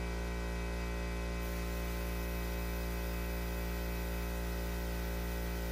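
A steady hum with a stack of evenly spaced overtones, holding one pitch and level throughout over a faint hiss.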